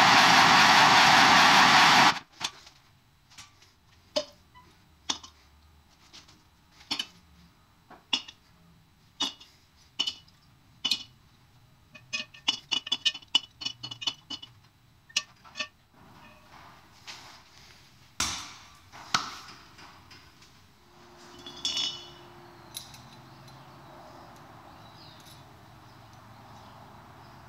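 Handheld gas torch burning with a steady loud hiss, shut off abruptly about two seconds in. Then a series of light clinks, about one a second, bunching into a quick cluster before thinning out.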